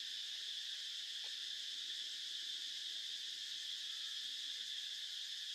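Steady high-pitched chorus of insects, an unbroken shrill chirring that does not change.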